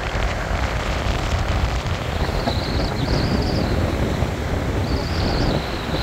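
Strong wind buffeting the microphone over the steady wash of rough surf breaking on a sandy shore. A thin, wavering high whistle comes and goes in the second half.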